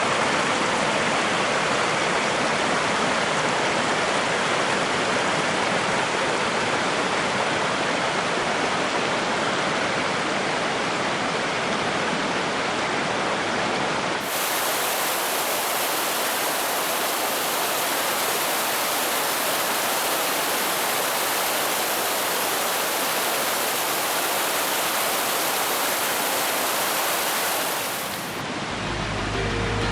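Rushing water of a mountain stream, a loud steady roar of cascading water, with an abrupt cut to another stretch of water about halfway through. Music comes in near the end.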